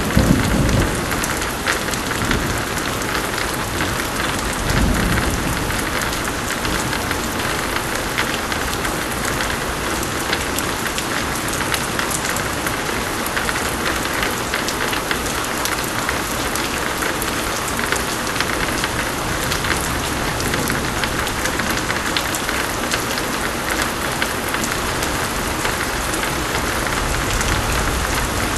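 Pouring rain, a steady hiss dotted with individual drop splatters. A low rumble of thunder fades out in the first second, and another short rumble comes about five seconds in.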